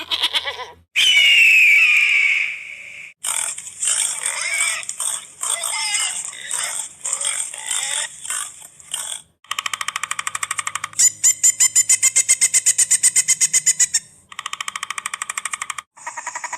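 A series of different wild animal calls, one clip after another with short breaks between: a loud high gliding call, then varied choppy calls, then a fast pulsing trill from about nine seconds in, and shorter pulsed calls near the end.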